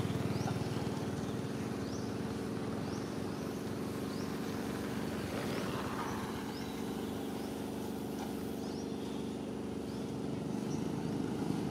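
A motor running steadily with an even hum throughout. A short, high rising chirp repeats roughly once a second over it, becoming sparser in the second half.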